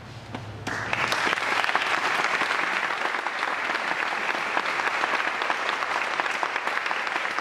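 A brass ensemble's last low held chord dies away, then audience applause breaks out under a second in and carries on steadily.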